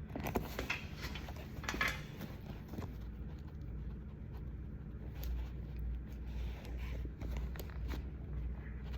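Faint handling sounds of a plush bag charm being clipped and strapped onto a handbag: scattered light clicks and rustles over a steady low hum.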